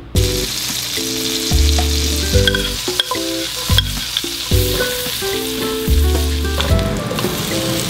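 Butter sizzling in a hot wok, starting suddenly as it hits the pan, then chopped garlic and dried chili frying in it as a spatula stirs them, with a few sharp clicks. Light background music with a steady bass plays underneath.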